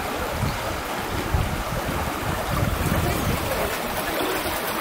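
Fast-flowing water rushing steadily through a narrow concrete aqueduct channel, with irregular low buffeting of wind on the microphone.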